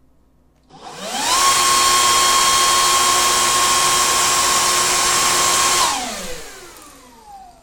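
Electric air blower switched on about a second in, its motor whine rising to a steady pitch under a strong rush of air. It drives a fidget spinner at high speed and is switched off near six seconds, the whine falling as the motor winds down.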